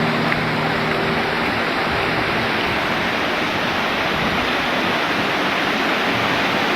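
Sekumpul waterfall pouring down in a steady, even rush of water. Background music fades out in the first couple of seconds.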